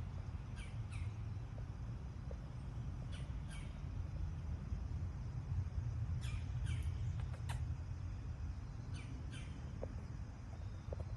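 Birds giving short high calls, mostly in quick pairs, several times over a steady low rumble.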